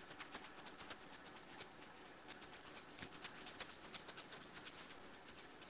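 Near silence on a video-call line, with faint, scattered little clicks.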